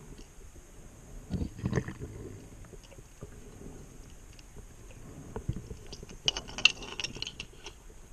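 A scuba diver's breathing heard underwater: a low bubbling rumble of exhaled air about a second and a half in, then a burst of crackling bubble clicks near the end.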